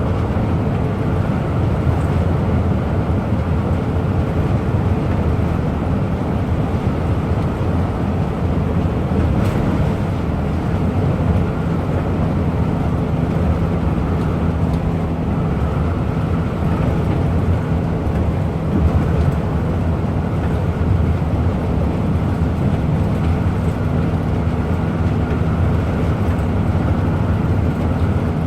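Bus running steadily at speed: a constant low engine drone with road and wind noise.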